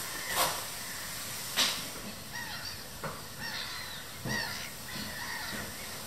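Waterbirds calling over a steady hiss of wind noise: many short, harsh calls overlapping from about two seconds in. Two sharp knocks come in the first two seconds.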